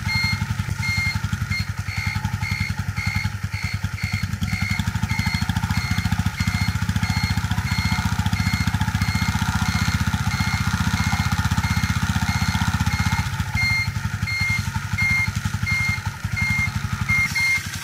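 CD-70 motorcycle's single-cylinder engine idling steadily while its turn-signal buzzer beeps rapidly, about three beeps a second. The bike is running on capacitors wired in place of a dead battery, with the electrics working properly.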